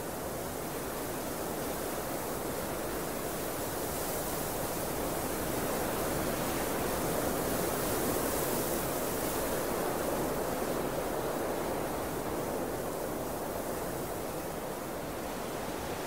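Steady wind noise with no other sounds, swelling in a slow gust toward the middle and easing off again.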